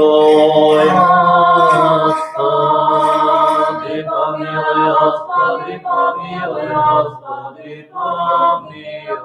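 Unaccompanied Orthodox liturgical chant from a panikhida memorial service: long held sung notes that shift in pitch, breaking into shorter sung phrases after about two seconds.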